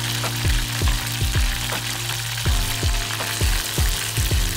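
Hot oil sizzling and crackling in a deep pot as battered pieces deep-fry, over background music with a beat.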